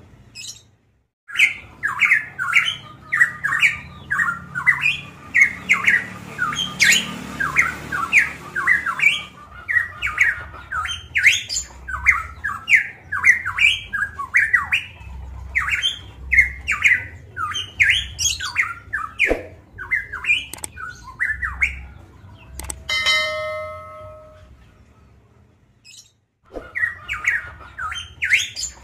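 Caged pitohui ('cucak emas Papua') singing loudly in a fast, unbroken run of short, sharp, chattering notes. After about twenty seconds the run gives way to one long held note lasting about a second and a half, then a brief lull, and the chattering starts again near the end.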